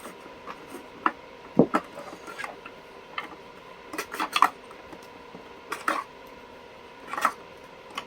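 Light knocks and clicks of plastic vacuum cleaner parts being handled, scattered irregularly with a few louder taps.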